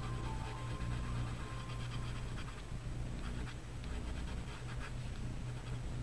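Gamsol-moistened paper blending stump rubbing over colored pencil on paper in small circles: a soft, repeated scratchy swishing. A steady low electrical hum runs beneath it.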